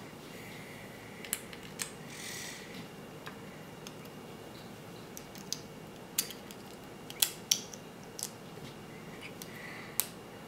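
Small plastic Lego pieces clicking as they are pressed onto a plate and handled: a scattering of short, sharp clicks at irregular intervals, with a louder pair about seven seconds in.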